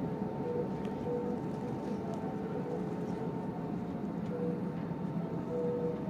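Steady drone of an airliner cabin in flight, with a constant faint hum on top and a few brief faint tones now and then.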